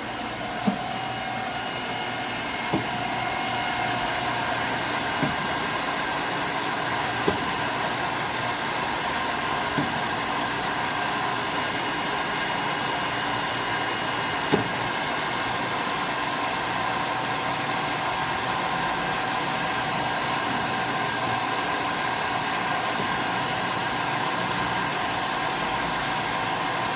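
Studer S20 CNC cylindrical grinder running, its grinding-wheel spindle and drives giving a steady hum with several steady whining tones. It grows a little louder about three seconds in, and a few sharp clicks sound now and then.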